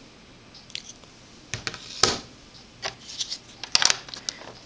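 Stamping supplies being handled on a plastic scoring board: a series of light knocks, clicks and rustles as an ink pad is moved about. The loudest knock comes about two seconds in.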